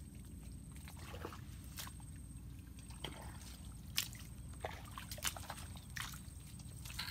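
Bare feet squelching through wet mangrove mud, an irregular string of short wet sucking clicks over a steady low rumble.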